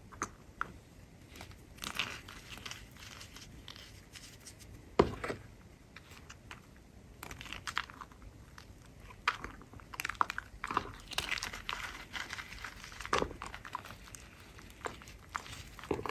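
Hands squeezing and crumbling clumps of powdery chalk in a bowl: irregular soft crunches and crackles, with sharper crunches about five seconds in and again near thirteen seconds.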